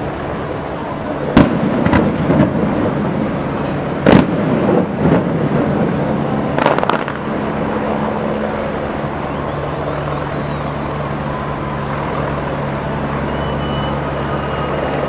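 Aerial fireworks going off: a series of sharp booms and cracks over the first seven seconds, the loudest about one and a half, four and seven seconds in. After that only a steady background hum remains.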